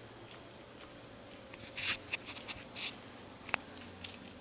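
Small dog licking and smacking its lips on a mouthful of peanut butter: a few short wet smacks and clicks.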